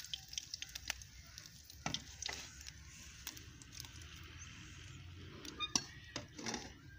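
Hot oil sizzling faintly in a hammered metal karahi, with a few light clicks of a metal slotted spoon against the pan.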